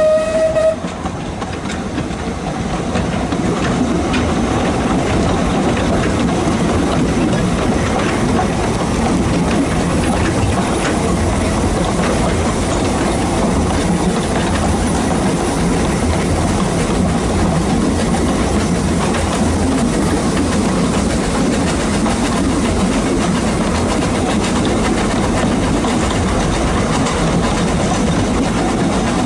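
Narrow-gauge steam train running, heard from on board: a steam whistle note ends within the first second, then a steady rumble and clatter of the carriages on the track.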